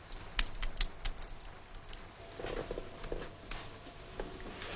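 Scattered light clicks and knocks in a quiet room, several close together about half a second in, with faint rustling later.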